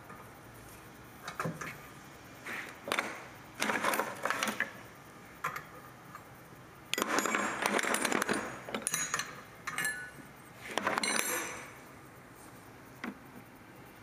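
Ratchet wrench clicking in several short spells as it turns a brake caliper piston wind-back tool, screwing the rear caliper piston of a 2008 Ford Taurus back into its bore.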